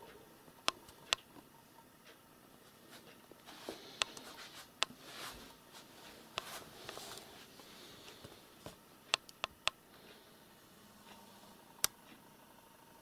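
Quiet room with a scattering of sharp, irregular clicks, a few close together, and some soft rustling in between.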